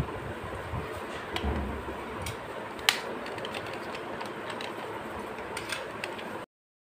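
Light clicks and taps of hard plastic toy parts being handled and fitted together, the sharpest about three seconds in, over a steady background hiss. The sound cuts off suddenly near the end.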